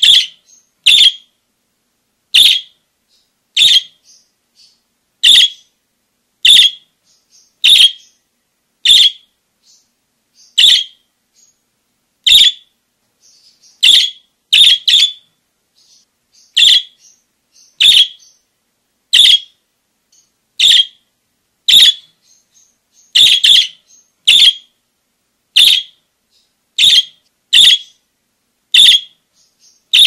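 Budgerigar giving loud, short calls about once a second, some in quick pairs, with soft chatter between them.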